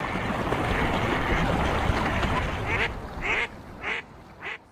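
Waterfowl quacking: a dense, busy run of quacks at first, then single quacks about every half second, each fainter than the last.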